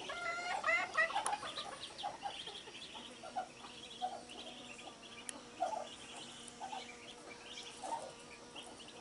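A mother hen clucking, quickly at first and then in short repeated calls, while her newly hatched chicks peep. A faint steady hum comes in about three seconds in.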